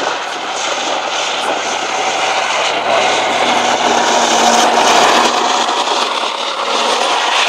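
Soviet T-55 tank driving by, its V-12 diesel engine running steadily.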